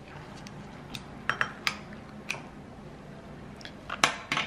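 A metal ice cream scoop clinking and tapping against a bowl while ice cream is scooped out. There are about six short, sharp clicks spread out, the two loudest near the end.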